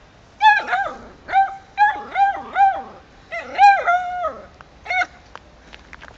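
Beagle barking and baying: a quick run of about ten high-pitched yelps, each rising and falling in pitch, grouped in twos and threes, with a last single bark about five seconds in. It is calling at a cat.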